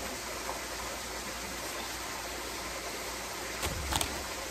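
Steady rushing of a backyard pool's rock waterfall, with a couple of short knocks near the end.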